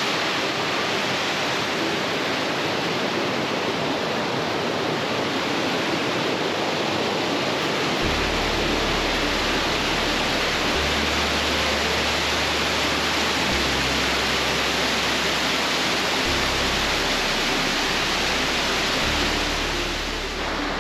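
Fast-flowing creek water rushing over rocks, a steady, even rush of a stream running high with spring runoff.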